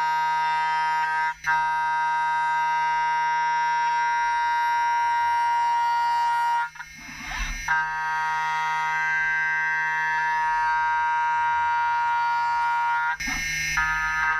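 Hermle five-axis CNC milling machine cutting metal: the milling cutter gives a loud, steady whine of several fixed pitches at once. It breaks off briefly three times, longest about seven seconds in, with a short rush of noise each time.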